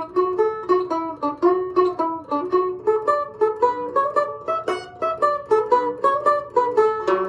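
Danish cookie-tin mandolin picked in a quick improvised Irish-style melody: a steady run of bright plucked notes, each dying away fast.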